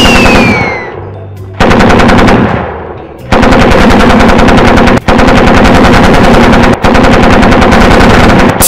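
Machine-gun fire sound effect: bursts of rapid automatic gunfire, one short burst and then a long, nearly unbroken stream with a couple of brief breaks. In the first second a falling whine fades out.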